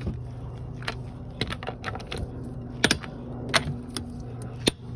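Torque wrench set to 80 ft-lb on the wheel's lug nuts, giving about half a dozen sharp metallic clicks spaced irregularly: the click that signals each nut has reached its set torque. A low steady hum runs underneath.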